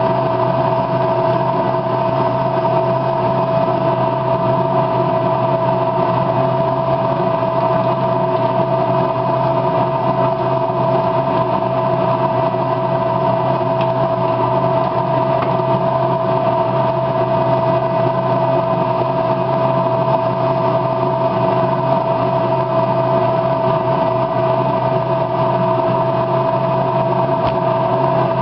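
Steady machine hum with a strong mid-pitched tone, unchanging throughout.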